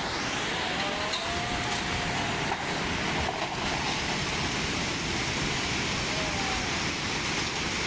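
Steady roar of rushing floodwater, an even rushing noise that holds at one level throughout.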